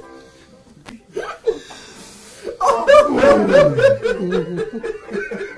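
Men laughing hard: quiet snickers at first, then about two and a half seconds in a loud burst of rapid 'ha-ha-ha' laughter, one voice sliding down in pitch.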